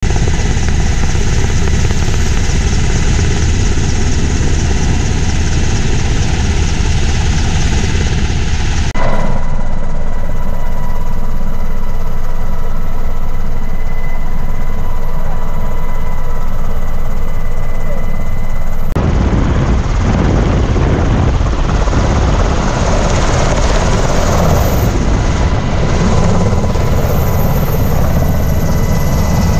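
MH-60S Sea Hawk helicopter's turbines and main rotor heard from inside the cabin, a loud steady rumble and roar. About 9 seconds in the sound changes abruptly to a steady high whine over the rumble, and about 19 seconds in it changes back to the fuller roar.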